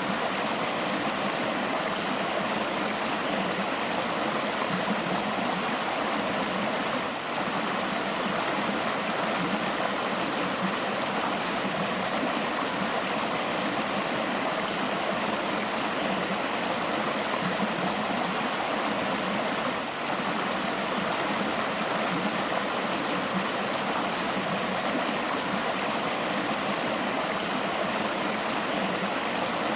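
River water flowing over stones: a steady rushing and burbling.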